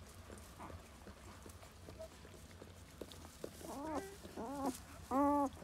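Newborn puppies crying: short, high, whining squeals that rise and fall, starting past the middle and growing louder near the end, over faint rustling in straw.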